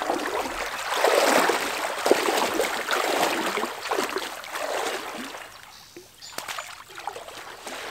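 Water sloshing and splashing around a person's legs as they wade through knee-deep river water, swelling with each stride about once a second, then easing off near the end.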